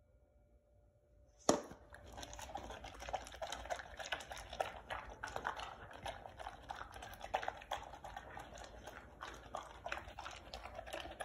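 A beagle lapping up beef broth from a stainless steel bowl: continuous rapid, wet, irregular lapping, starting after a single sharp knock about a second and a half in.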